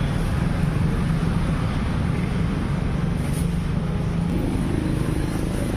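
Steady low rumble of road traffic, with engine hum and no distinct single events.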